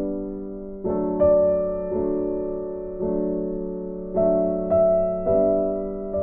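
Background music: slow, gentle piano-like keyboard chords, with new notes struck about once a second, each dying away.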